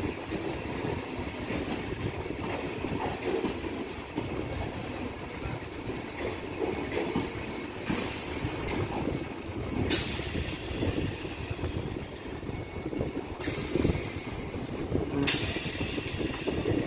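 Electric multiple-unit local train rolling slowly into a station, its wheels rumbling and clacking over the rails as it slows. High-pitched brake and wheel noise comes twice, about eight and thirteen seconds in, each stretch ending with a sharp clank.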